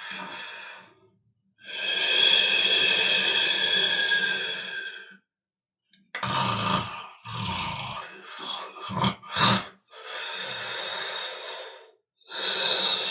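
People snoring, heard as a string of separate recordings: several long noisy snoring breaths of two to four seconds and a couple of short sharp ones, each set apart by an abrupt moment of silence.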